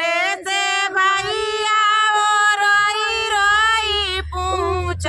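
A woman singing a Hindi folk wedding song (vivah geet) without accompaniment, drawing a syllable out into one long, slightly wavering held note, with a short break for breath a little after four seconds in.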